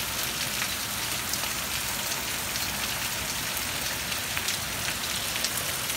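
Hail and rain coming down hard: a steady, dense hiss with scattered sharp ticks of hailstones striking.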